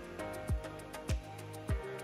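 Background music: a steady deep drum beat, a little under two beats a second, over held chords and light ticking percussion.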